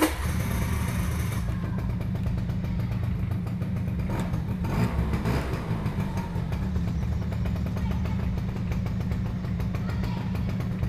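Two-stroke engine of a 1995 Suzuki V100 scooter running at idle, steady throughout, with a brief swell about five seconds in.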